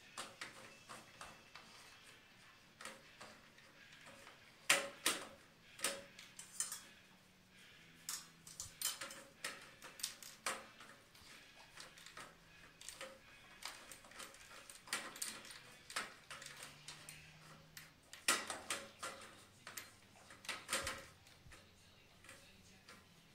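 Dog eating from a stainless steel bowl: irregular metallic clinks and knocks of the bowl as it licks and chews, coming in clusters, the loudest about five seconds in and again near the end.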